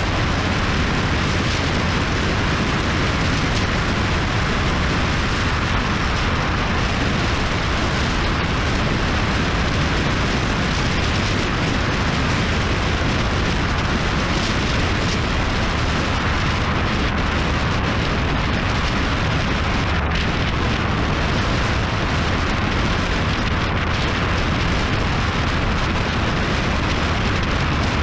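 Motorcycle riding at steady speed: constant wind rush over the camera microphone, with the engine's low drone underneath.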